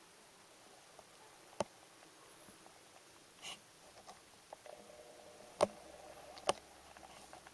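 Handling noises from hands-on bicycle work: three sharp clicks and a brief scrape, with a faint steady hum coming in about halfway through.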